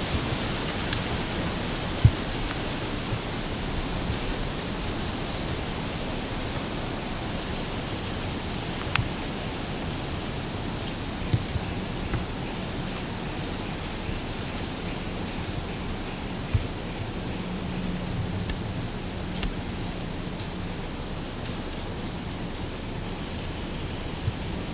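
Steady outdoor ambience of insects droning on one constant high pitch over an even hiss, with a few faint clicks scattered through it.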